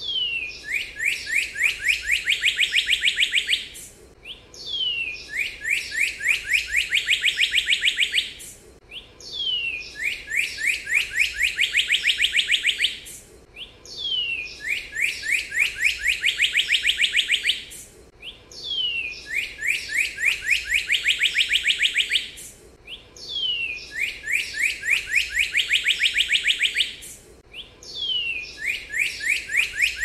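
Northern cardinal singing: each phrase is one falling slurred note followed by a fast run of many short downslurred whistles, and the same phrase repeats every four seconds or so.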